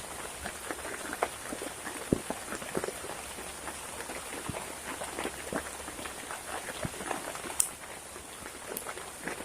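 Heavy rain falling, with many irregular drops tapping close by, a few of them louder.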